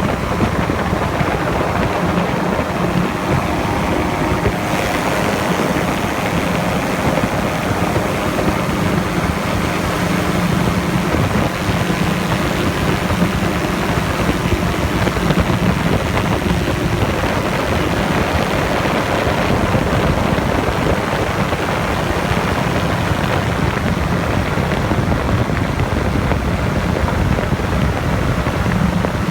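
Camera drone's motors and propellers humming steadily in flight.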